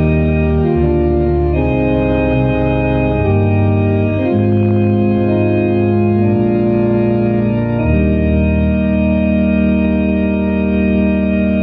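Organ playing slow, sustained chords that close a hymn, ending on a long held final chord that dies away near the end.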